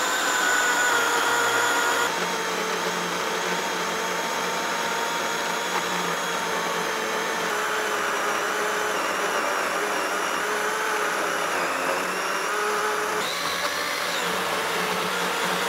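DeWalt cordless electric chainsaw ripping lengthwise through a timber beam in a chainsaw mill: a steady motor whine under load over the sound of the chain cutting wood. The pitch shifts slightly about two seconds in and again near the end.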